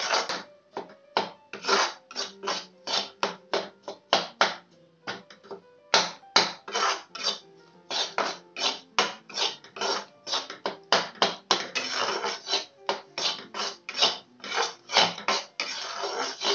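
A spatula scraping round a kadhai, stirring melted jaggery, in rapid repeated strokes of about two to three a second with a short pause about five seconds in. Faint background music underneath.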